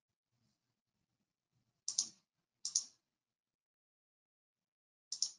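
Short clicks against a quiet background: two about two seconds in, less than a second apart, and another near the end.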